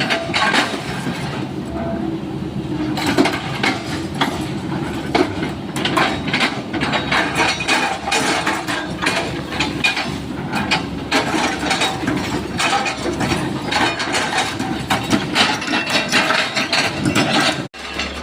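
Sany SY135F excavator running while its bucket chops an oil palm trunk into chips, with many sharp cracks and knocks of splitting wood over the engine's steady hum. The sound cuts off abruptly near the end.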